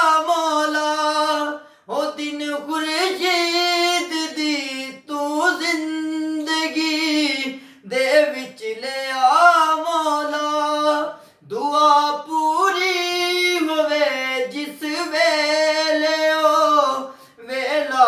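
A man singing a naat solo, unaccompanied, in a fairly high voice: long held, ornamented phrases of about three seconds each, with short breaths between.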